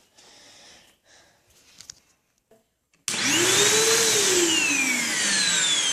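Vacuum cleaner switched on about three seconds in to clean out a keyboard, its motor whine climbing briefly and then sinking slowly in pitch. Faint handling noises come before it.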